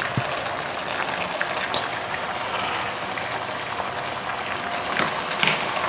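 Steady sizzling and bubbling from chicken pieces cooking in a pot on a gas stove, mixed with eggs at a rolling boil in a saucepan beside it, with small crackles throughout.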